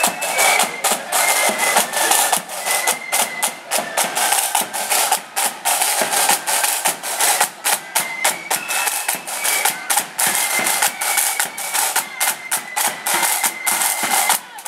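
Marching flute band playing: side drums beating a quick, steady march rhythm, with a faint flute tune held and stepping in pitch above the drumming.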